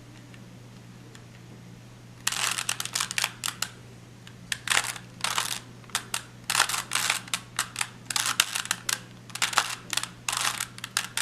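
Plastic 3x3 Rubik's cube layers being turned by hand, quick clicking and rasping turns in bursts, starting about two seconds in.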